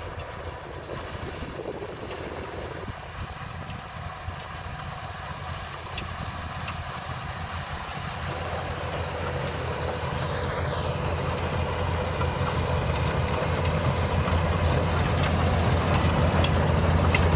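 Yanmar AW82V combine harvester's diesel engine running steadily, growing louder throughout.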